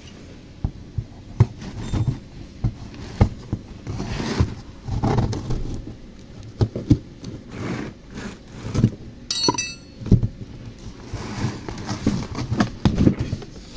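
Hands opening a taped cardboard carton: irregular scraping, rustling and knocks of the cardboard, with one brief high squeak about two-thirds of the way through.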